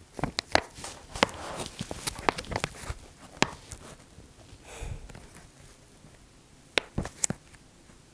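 Scattered sharp clicks and knocks, a quick run of them in the first few seconds and a few more near the end, with a soft rustle about five seconds in: someone moving about and handling things close to the microphone.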